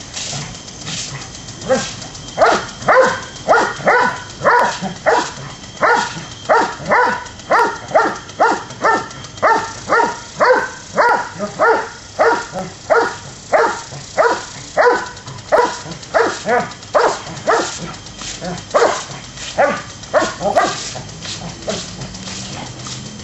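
Doberman barking over and over at a lawn sprinkler's spray, about two barks a second. The barking starts a couple of seconds in and thins out near the end.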